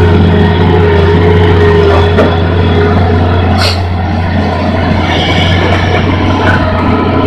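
Hitachi Zaxis 210 excavator's diesel engine running steadily under load as the machine digs and swings, with a steady whine that fades about two seconds in and a short high hiss about three and a half seconds in.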